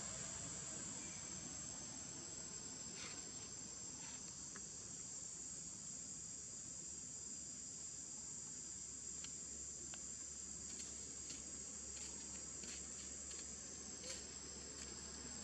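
Steady high-pitched insect trill, such as crickets or cicadas, with a few faint ticks scattered through it.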